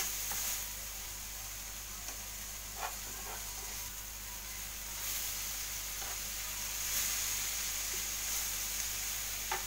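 Diced turkey and onion sizzling in butter in a frying pan, stirred with a few light scrapes of the utensil.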